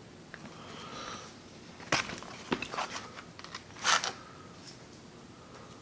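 A few light clicks, then a short rustling scrape just before four seconds in: a wooden spoon set down into a foil-lined takeout tray, crinkling the foil.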